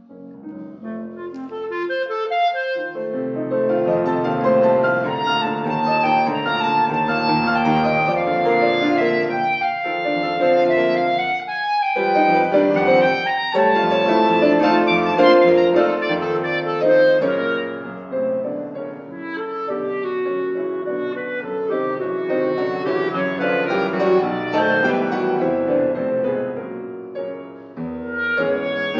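Clarinet and Steinway grand piano playing a classical chamber sonata together, the clarinet carrying the melody over piano accompaniment. It begins softly and swells to full volume after about three seconds.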